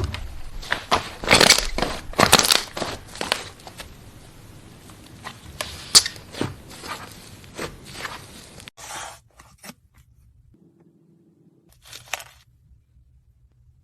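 Slime being pressed and squeezed by hand, giving dense, irregular clicks and crackles for about nine seconds. Then it goes almost quiet, with one short crackle near the end.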